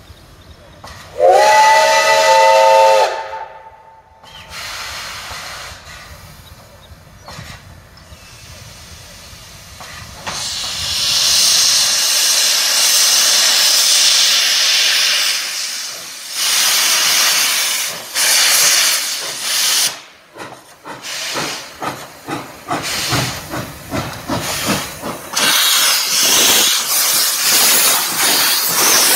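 Steam locomotive whistle sounding one blast of about two seconds near the start, a chord of several tones that slides up as it opens. Later comes a loud hiss of steam blowing out low beside the track, steady for several seconds and then in uneven bursts as the engine moves past.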